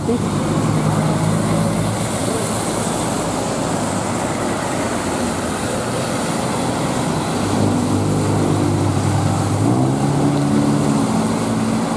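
Road traffic passing on a wet road: a large intercity bus's engine drones by over a steady hiss of tyres on wet asphalt. A second engine tone comes in later, and its note steps up in pitch about ten seconds in.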